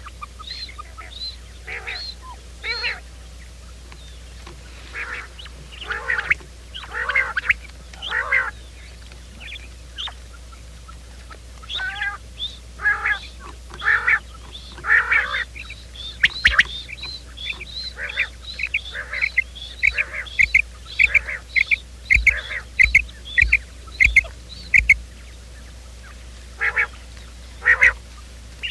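Quail calls played as a trapping lure: a string of short, repeated calls, with a quicker run of brief high notes, about two a second, in the second half.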